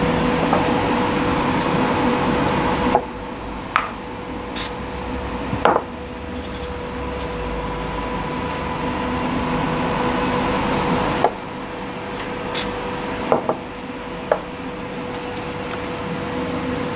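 3D-printed plastic nozzle parts and servos being handled, with about seven short clicks and knocks as pieces are fitted. Under them runs a steady background hum with a constant tone, whose hiss drops for several seconds in the middle.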